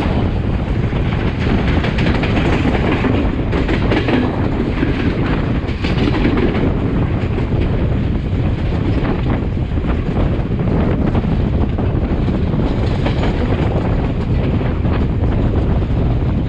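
Passenger train running along the line, heard from the open window of a moving carriage: a steady rumble of wheels on rail with scattered clicks from the rail joints.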